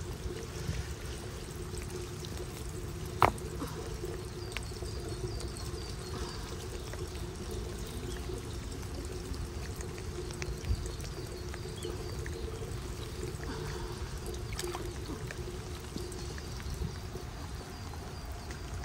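Rainwater pouring steadily out of three corrugated drain-pipe outlets with green strainer grates into a flooded patch of lawn, runoff from heavy rain. A single sharp click about three seconds in.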